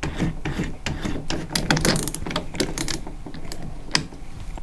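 Metal keyless chuck of a Makita HP001G cordless drill being tightened by hand: a quick, irregular run of ratcheting clicks as the sleeve is turned to lock the jaws.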